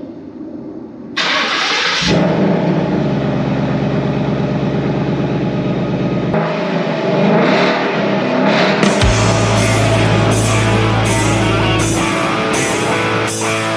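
Rock music with a held bass line that changes in steps and a steady beat, starting suddenly about a second in.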